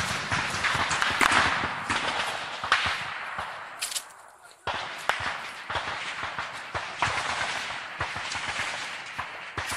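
Gunfire during a jungle firefight: many sharp shots cracking in a dense, irregular rattle. The shooting drops away briefly about four seconds in, then resumes with a sudden loud shot and carries on.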